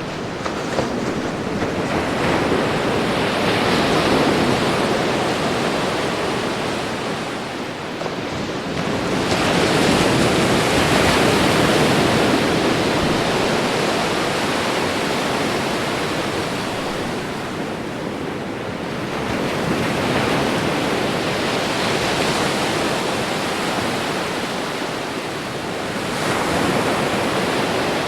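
Ocean waves breaking on a beach: a continuous rush of surf that swells and falls back with each wave, about four surges roughly seven to eight seconds apart.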